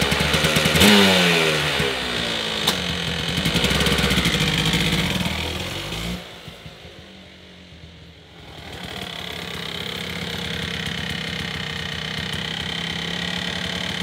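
Kawasaki KDX200's single-cylinder two-stroke engine revving up and back down about a second in, then running on, fading as the bike rides away about six seconds in and growing louder again as it comes back, running steadily. The engine is being warmed up before an oil change.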